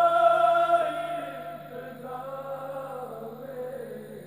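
A group of men chanting a noha, a Shia mourning lament, in unison without instruments, heard through a television speaker. Loud held notes open it, and the chant drops to a quieter line from about two seconds in.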